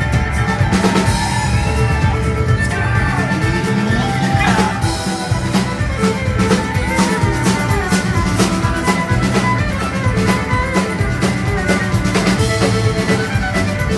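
Band music with a steady drum-kit beat under sustained instrumental lines.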